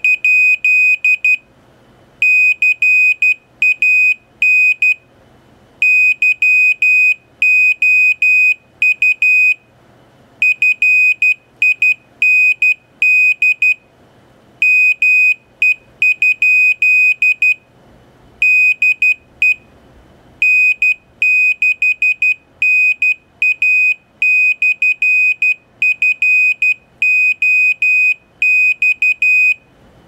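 Piezo buzzer driven by an Arduino-compatible board sending a repeating Morse code message: one steady high-pitched beep keyed on and off in short dots and longer dashes, with brief pauses between letters and words.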